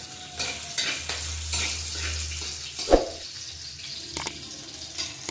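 Crushed garlic and green chillies frying in shallow oil in a metal kadai, a soft sizzle as the garlic browns, with a metal spatula scraping and tapping the pan. There is one louder knock about three seconds in.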